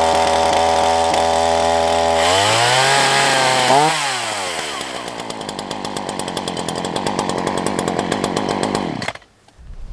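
Ryobi 18-inch two-stroke gas chainsaw running just after a cold start on the eleventh pull. It holds a steady fast idle, rises briefly in pitch and falls back about two to four seconds in, settles into a rougher, lower idle, and cuts off about nine seconds in.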